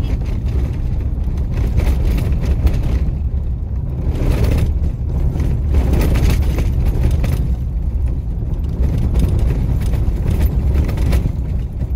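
Steady low rumble of a vehicle driving on an unsealed dirt road, heard from inside the cabin: tyre and road noise with the engine under it.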